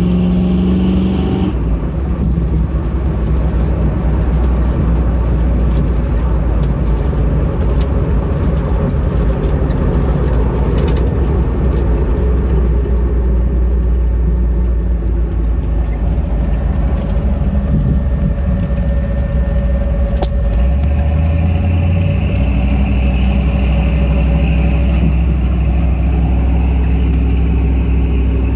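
1977 Ford Bronco driving along a street: its engine running steadily under way, with tyre and road noise. The engine note changes about a second and a half in and again around twenty seconds in, with a single click just before the second change.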